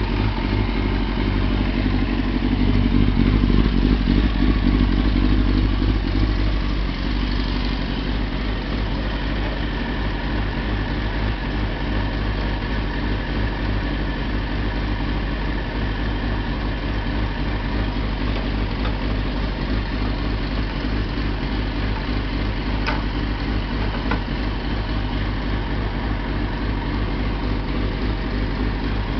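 Kawasaki ZX-6RR inline-four engine idling steadily on freshly cleaned spark plugs, running evenly with its misfire cured. It runs a little louder for a few seconds early on, then settles to an even idle.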